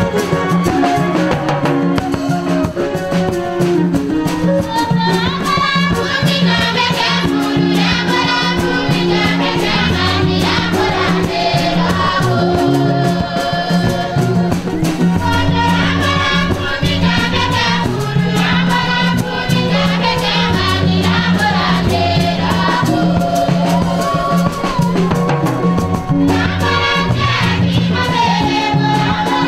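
Church choir singing a hymn in several parts over a steady low bass note, with rattling percussion keeping the beat.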